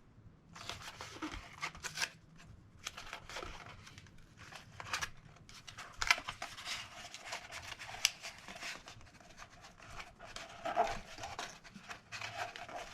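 Tape being pulled off the roll, torn and pressed down onto a cardboard bracer, heard as a run of irregular rasps and crinkles.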